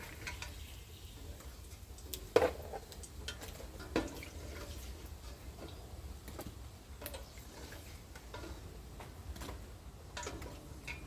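Metal tongs tapping and clinking against a frying pan: scattered light ticks, with two sharper knocks about two and a half and four seconds in.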